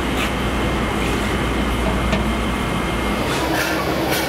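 Steady workshop rumble with a low hum, and a few light clicks as aluminium pots are set down.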